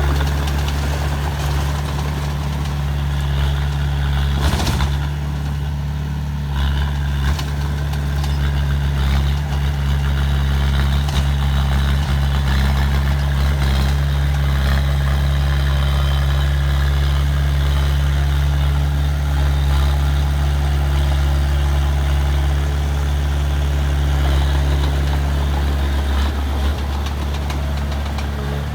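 Diesel engine of heavy earthmoving machinery running steadily with a deep, unbroken hum, and a short knock about five seconds in.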